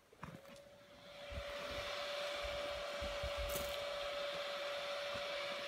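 A small motor running with a steady high whine over a rushing hiss, the hiss building up about a second in.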